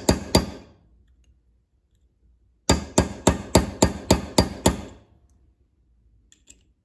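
Claw hammer striking a steel pin punch to drive a pin into a 6F55 front differential case, metal on metal. Two quick strikes at the start, then after a pause a run of about nine rapid taps, about four a second.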